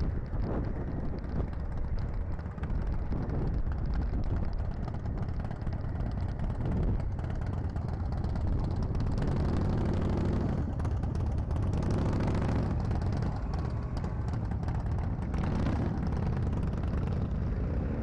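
Motorcycle engines running at low speed as a group of riders pulls away one after another. Under a steady low rumble, the engine notes swell several times, around the middle and again near the end.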